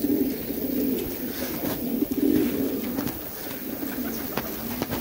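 A flock of racing pigeons cooing, a continuous low murmur of overlapping coos, with a few light clicks scattered through.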